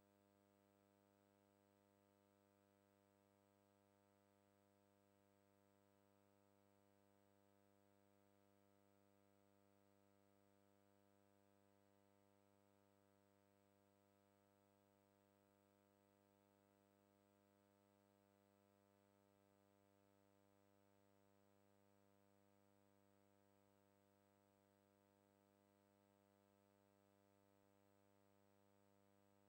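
Near silence: only a faint, steady electrical hum with no other sound.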